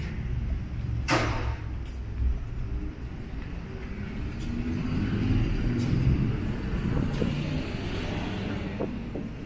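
Road traffic: the low rumble of vehicle engines, with a car passing and its tyre noise swelling and fading in the middle. A short hiss comes about a second in.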